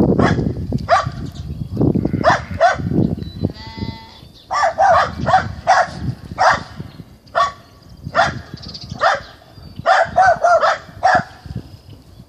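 Farm animals calling over and over: short, sharp calls, about one or two a second and some in quick pairs, with a brief buzzy, pulsing call about four seconds in.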